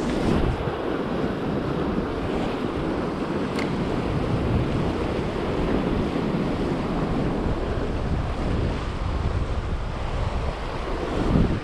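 Sea surf washing over coastal rocks, with wind buffeting the microphone in a steady low rumble.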